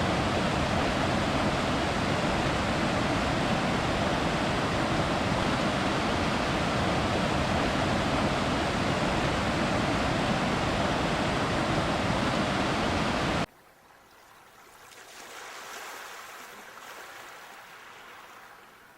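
Steady rushing water. About thirteen seconds in it cuts off suddenly to a much quieter wash of water that swells up once and slowly ebbs away, like a small wave coming in.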